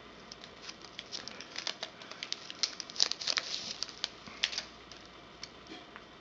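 Plastic protective film on a new smartphone crinkling and ticking as the phone is handled and turned over: a run of light, sharp crackles that thin out after about four and a half seconds.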